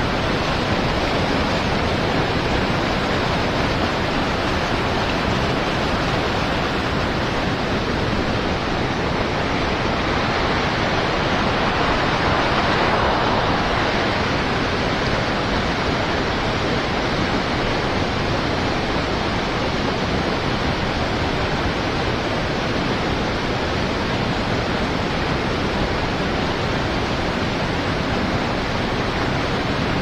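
Steady rush of flowing river water, swelling slightly about twelve seconds in.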